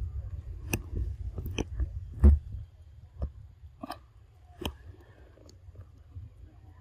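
A string of about ten sharp, separate clicks and crackles, the loudest about two seconds in, over a low rumble that dies away about halfway through.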